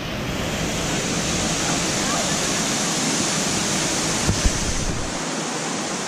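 Small waterfall pouring into a pool: a steady, even rush of water. A couple of low bumps come about four seconds in, and the deep part of the rush falls away about a second later.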